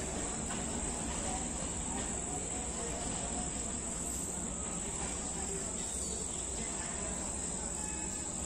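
Crickets trilling steadily in one high, unbroken note, over a low background hum.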